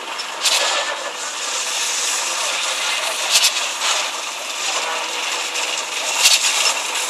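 Construction machinery running steadily during a concrete pour, with three short noisy surges about three seconds apart.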